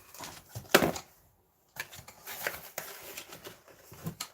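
Product packets being handled: one sharp knock, the loudest sound, about three-quarters of a second in, then after a short pause a run of small taps and rustles.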